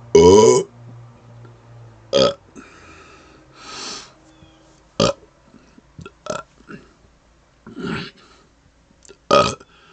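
A man burping over and over, about half a dozen burps a second or two apart. The first is the loudest and longest, about half a second; the rest are short. Quieter breathing sounds fall between them.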